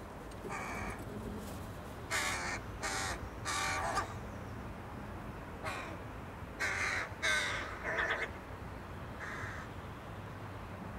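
Crows cawing: harsh caws, a single one, then a run of three, a single, another run of three, and a last single, about nine in all.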